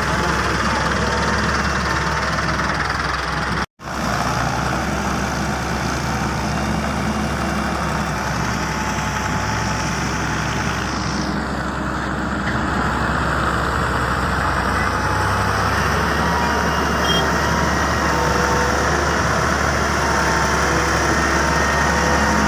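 Heavy diesel engines of an excavator and dump trucks running steadily. The sound drops out for an instant just under four seconds in.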